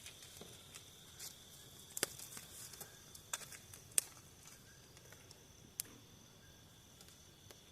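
Crickets chirring in a steady high trill, with a handful of sharp snaps and crackles, the loudest about two and four seconds in.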